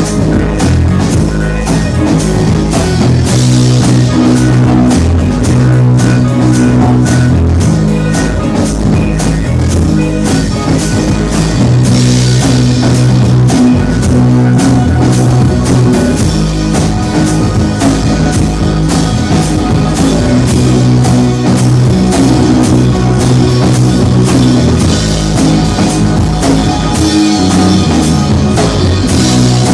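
Indie pop band playing live: guitars, bass and drum kit, loud and steady, with the bass holding long low notes under fast, busy drumming.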